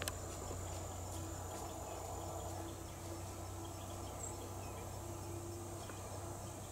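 Quiet woodland ambience: a faint, steady high insect drone over a low, constant rumble.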